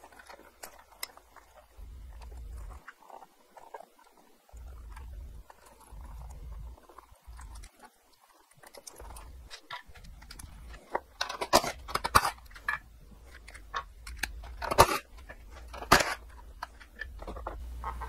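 Small clicks and plastic rattles of wiring connectors and the tail light assembly being handled and pried apart. Then a cordless driver runs in a few short bursts, about two-thirds of the way through and again near the end, backing out the mounting bolts.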